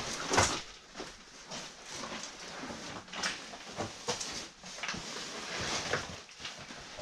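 Irregular scuffs, scrapes and rustles of cavers moving over rock rubble.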